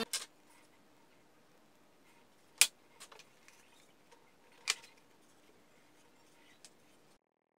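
Cut plywood panels being handled, giving a few sharp wooden knocks and lighter taps: a loud knock about two and a half seconds in, a few small taps just after, and another knock a little before five seconds.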